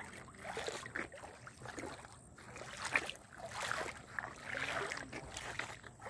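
Shallow stream flowing over a stony bed, with irregular trickling and splashing.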